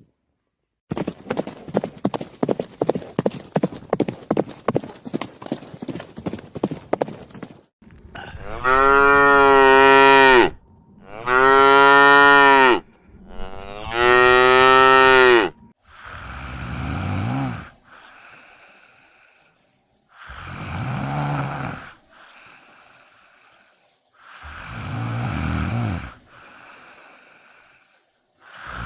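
Cattle mooing: three loud, long moos of about two seconds each, then three deeper moos, each trailing off into a softer breathy tail. Before the moos there are about seven seconds of rapid clicking pulses from an unclear source.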